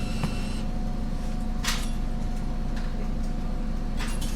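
City bus engine idling, heard inside the cabin as a steady low hum. A short rushing burst comes about a second and a half in, and a few light clicks come near the end.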